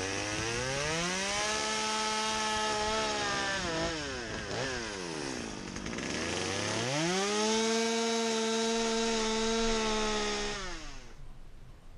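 Two-stroke Stihl chainsaw cutting into a wooden board in two passes. It revs up to full throttle and holds for a few seconds, drops back about four seconds in, revs up and cuts again, then winds down and falls away near the end.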